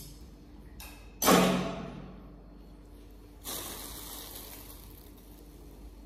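A sharp clatter about a second in, fading over under a second, then a plastic bag crinkling as it is picked up and handled.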